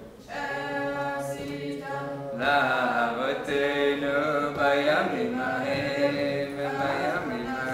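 Voices singing a slow, chanted melody together as the Chanukah menorah is lit, growing louder about two and a half seconds in.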